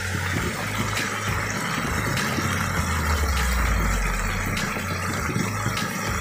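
Pok choy and garlic sizzling steadily in a hot wok during stir-frying, over a steady low rumble.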